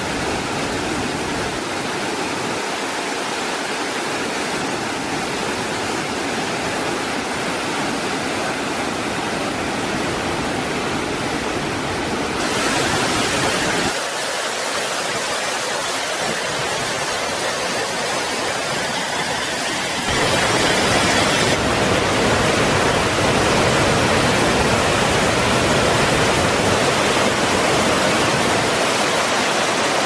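Waterfall pouring into a rocky pool: a steady rush of falling water. Its tone and level change abruptly a few times, and it is louder in the last third.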